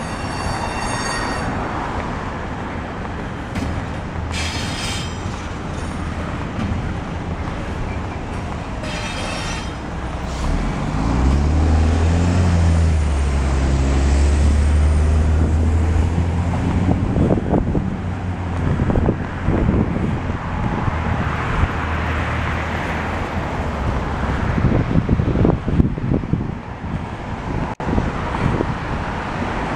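A double-stack container freight train rolling past, with a few brief high-pitched squeals from the train. It gives way to road traffic, where a heavy road vehicle goes by with a deep engine drone, the loudest part, lasting several seconds around the middle.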